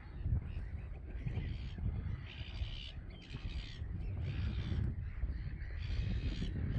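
Gulls calling harshly from the pool, a run of rasping calls from about two seconds in, over a low rumble.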